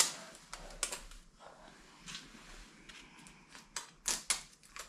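Thin plastic protective film crackling in irregular sharp snaps as it is peeled off and handled on a plastic hood bug deflector. The sharpest snap comes right at the start, with a quick cluster of snaps near the end.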